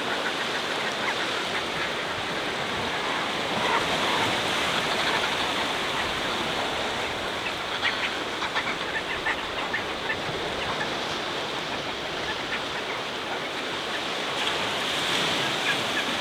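Sea surf washing against the foot of the cliffs, a steady rushing, with short scattered calls from the seabird colony.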